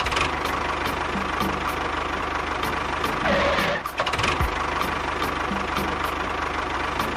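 Small engine running steadily with a fast, even low pulsing, swelling briefly about three seconds in.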